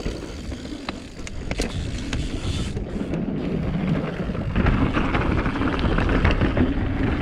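Mountain bike rolling over a dirt trail: a low tyre rumble with scattered clicks and rattles, plus wind buffeting the microphone, getting louder about four seconds in.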